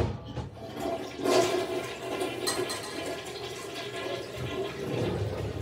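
A toilet flushing: water rushes in about a second in and keeps running steadily.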